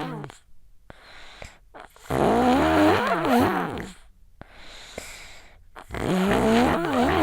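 A sick child snoring on each in-breath, the snore rattling with a wavering pitch. The first snore is ending as the sound begins, a full one of about two seconds comes a couple of seconds in, and the next starts near the end, with quiet gaps between them.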